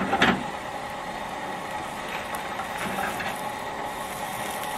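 Omelet frying softly in a small nonstick frying pan, a steady low sizzle, with a brief clatter of the spatula against the pan right at the start as it goes under the omelet to fold it.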